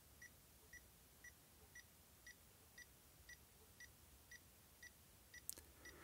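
Socket & See DIT 400 insulation tester beeping faintly, about twice a second, while it holds a 500-volt insulation test. A single faint click comes near the end.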